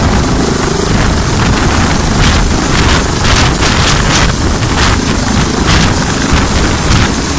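Helicopter hovering low overhead: the turbine's thin, steady high whine rides over a loud, dense rush of rotor noise and downwash.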